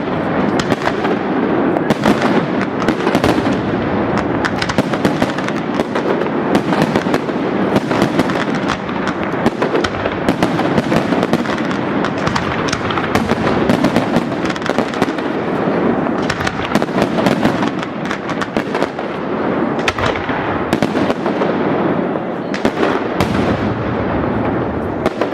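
Aerial fireworks display: a dense, unbroken barrage of shell bursts and crackling, with sharp reports packed closely together throughout.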